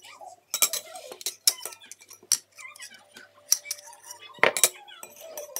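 Metal fork clinking and scraping against a plate as food is picked up: a string of sharp, irregular clicks, the loudest about four and a half seconds in.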